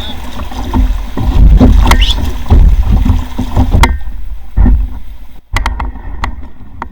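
Canoe being paddled: paddle strokes in the water with several sharp knocks, over a heavy, uneven deep rumble.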